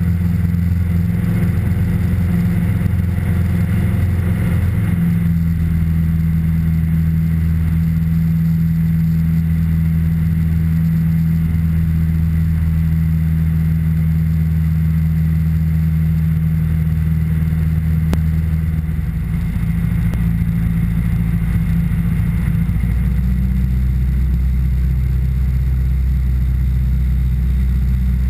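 Piper PA-28-161 Warrior III's four-cylinder Lycoming O-320 engine and propeller droning steadily, heard inside the cabin. The engine note shifts about five seconds in and again twice in the second half.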